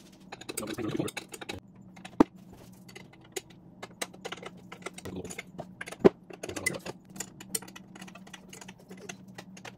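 Small metal clicks and clinks of nuts, washers and a wrench being handled on a J-type overdrive housing while nuts are threaded onto its studs, with two sharper knocks, about two seconds in and again about six seconds in.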